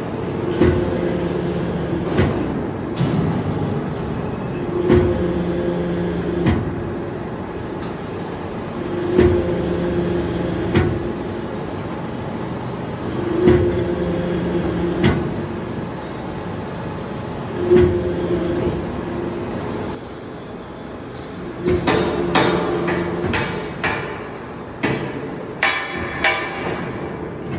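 Sectional spiral flight making machine forming steel discs into helical flight blades: about every four seconds a knock, a steady hum of about a second and a half as the forming stroke runs, and another knock, over the machine's constant running noise. Near the end comes a quick run of metal clanks.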